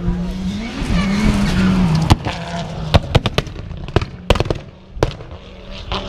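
A rally car on a gravel stage, its engine revving up and down, then a string of sharp, irregular cracks over the next few seconds.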